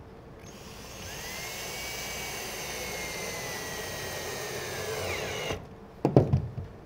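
Cordless drill driving a screw into the chair's wooden frame: the motor whines steadily for about five seconds, its pitch sagging slightly as the screw seats, then stops. A few sharp knocks follow about a second later.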